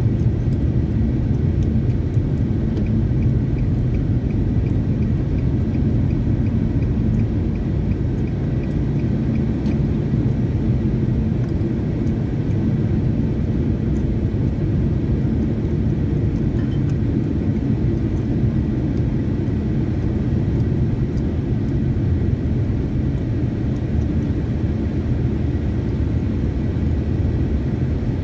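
Steady low rumble of a moving car's engine and tyres, heard from inside the cabin. For several seconds near the start there is also a faint, even ticking, about two ticks a second.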